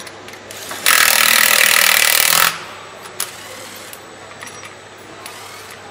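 Handheld cordless power tool run once for about a second and a half, driving in a bolt that joins the gearbox to the W12 engine, followed a moment later by one sharp metallic click.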